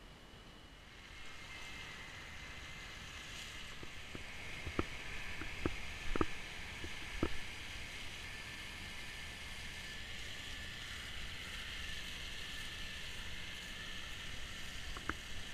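Kimadan slurry tanker's trailing-hose boom working across a field while spreading slurry: a steady rushing noise that swells about a second in, with a handful of sharp knocks a few seconds later.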